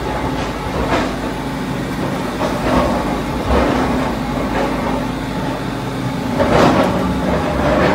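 Mini bored-pile drilling rig at work: its engine and hydraulics run steadily while the square drill rod turns in the stony ground. Louder grinding surges come every second or two.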